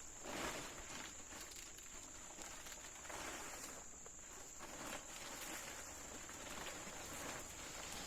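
A steady, high-pitched insect drone, with intermittent soft scuffing and rustling.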